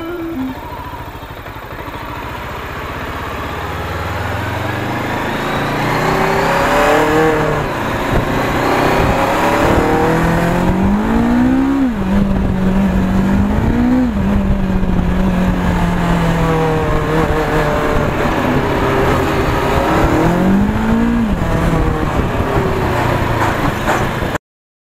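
Freshly rebuilt Bristol Venturi 500 motorcycle engine pulling on a test ride, getting louder as it gathers speed. Its revs climb and then drop back about four times as it shifts up, with wind rush underneath. The sound cuts off abruptly just before the end.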